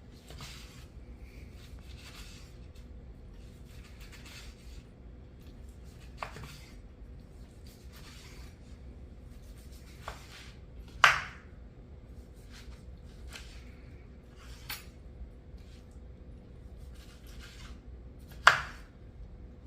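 Knife slicing through a cooked tomahawk steak on a cutting board: soft strokes every second or two, with two sharp knocks, about eleven seconds in and near the end.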